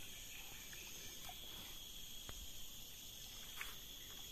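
Faint, steady high-pitched insect chorus, a continuous trilling drone, with a couple of faint clicks.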